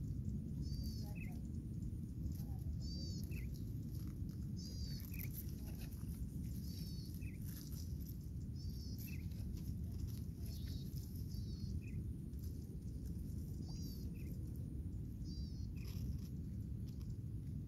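A bird calling over and over: a short high call about every two seconds, over a steady low rumble.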